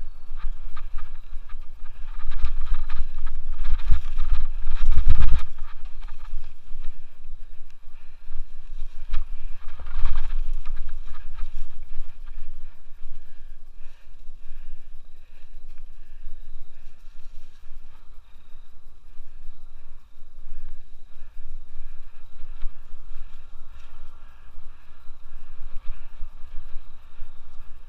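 Scott Aspect 770 mountain bike ridden over a leaf-covered dirt trail: tyres rolling over the ground and the bike rattling over bumps, with wind buffeting the helmet-mounted microphone. The hardest jolts come in the first five seconds and again about ten seconds in.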